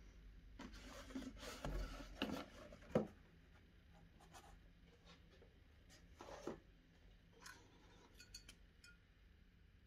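Empty cardboard box handled by hand: cardboard rubbing and scraping for about three seconds, ending in a sharp knock, then one short scrape a few seconds later and a few faint taps.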